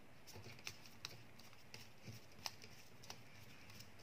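Screwdriver tightening a brass terminal screw on a plastic light switch: faint, irregular small clicks and ticks.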